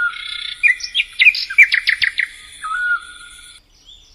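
A bird calls in a run of quick, sharp chirping notes over a steady high-pitched buzz. The calling and the buzz stop abruptly about three and a half seconds in, and faint short rising chirps follow.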